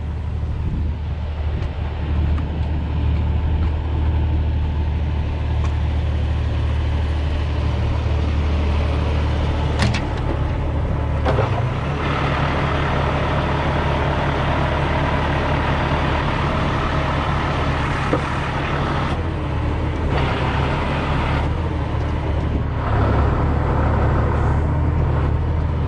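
Diesel engine of a Peterbilt 337 tow truck idling steadily, a low even hum with a sharp click about ten seconds in.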